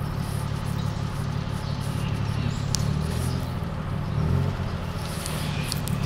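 Engine of a three-wheeled tuk-tuk taxi running with a steady low rumble heard from the passenger seat, its note shifting around the middle as the ride slows. A few faint light clicks or rattles sound over it.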